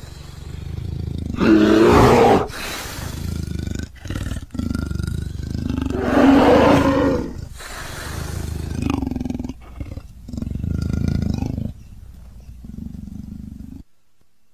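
A creature's roar sound effects: a string of rough roars and growls, the two loudest about two and six seconds in, quieter ones following, cutting off suddenly near the end.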